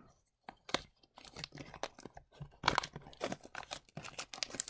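Cardboard trading-card blaster box being torn open and handled by hand: irregular tearing, crackling and crinkling of cardboard and packaging.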